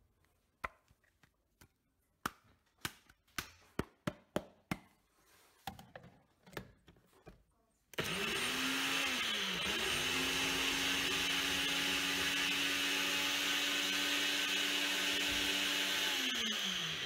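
A series of sharp clicks and knocks as a single-serve bullet-style blender cup is handled and set onto its base. About halfway through, the blender motor starts and blends chopped scallion, onion, garlic and sweet pepper into a green seasoning paste. It dips briefly soon after starting, then runs steadily for about seven seconds and winds down near the end.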